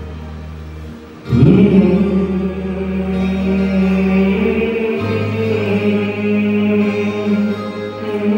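A man singing through a microphone and PA over a backing music track, with long held notes beginning about a second in.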